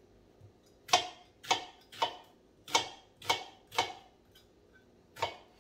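Kitchen knife chopping onion on a cutting board: seven sharp knocks, about two a second, with a pause before the last one.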